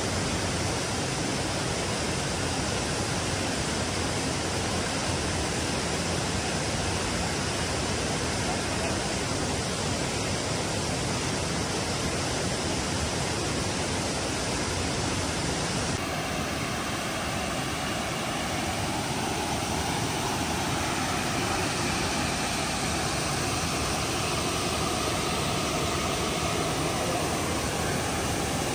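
Steady rush of falling water, an even noise with no break; its tone shifts slightly about sixteen seconds in.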